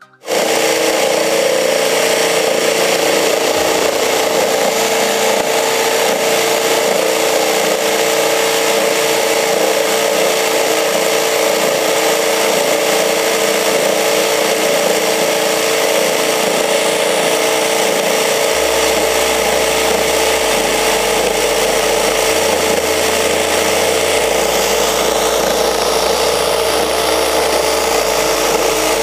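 Electric drill driving a plastic reciprocating jigsaw adapter, its wood blade sawing through a thick wooden plank. The drill starts suddenly and runs as a steady high whine, with the rasp of the blade cutting.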